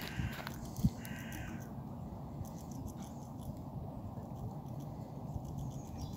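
A crow cawing twice in the first two seconds, each caw about half a second long, over a steady low background rumble.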